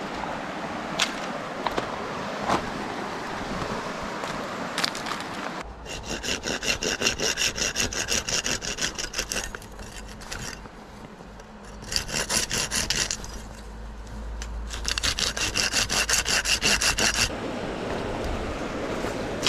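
Hand saw cutting through dead wood in three bouts of quick back-and-forth strokes, each stroke rasping with a ringing edge. The first bout begins about six seconds in and the last stops a couple of seconds before the end. Before the sawing there is a steady hiss with a few sharp clicks.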